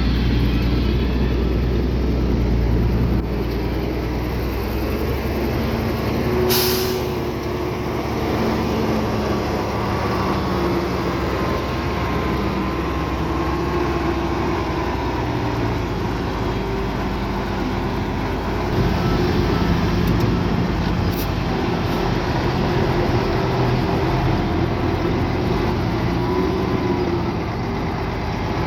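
Heavy diesel earthmoving machinery running steadily, with faint wavering squeals through it. A short, sharp hiss of air comes about six and a half seconds in.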